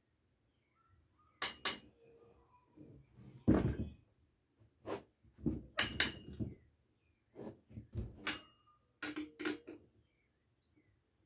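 Irregular metallic clinks and knocks of tools and bike parts being handled, some with a brief ring.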